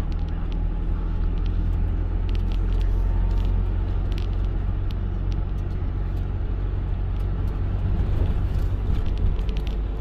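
Car driving along a road, heard from inside the cabin: a steady low rumble of engine and tyres, with a few faint light ticks.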